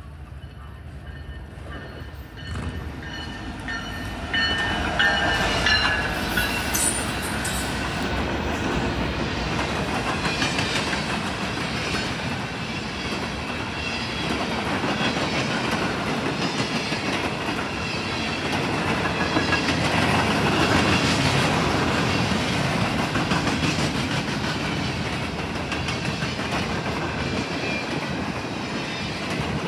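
Canadian National freight train passing close by: the diesel locomotive comes up and goes by about five seconds in, then the freight cars roll past with the steady clickety-clack of steel wheels on the rail.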